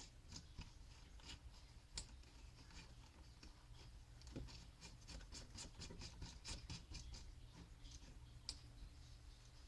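Faint clicking and scratching as the flex shaft's end is twisted and worked into the rotary tool until it locks, with a quick run of light clicks about five to seven seconds in.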